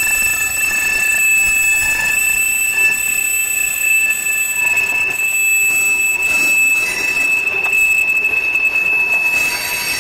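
Freight cars of a long mixed freight train rolling past on a curve, their wheels squealing against the rail in steady high-pitched ringing tones over the rumble of the cars.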